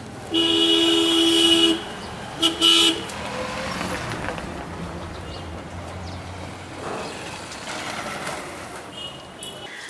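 Vehicle horn honking: one long blast of about a second and a half, then a quick double toot, over the steady noise of street traffic.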